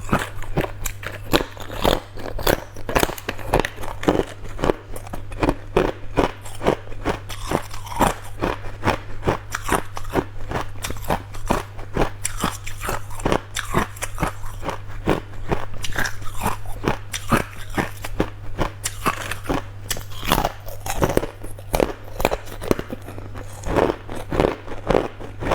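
Hard, clear ice being bitten and crunched between the teeth: a continuous run of sharp cracks and crunches, several a second.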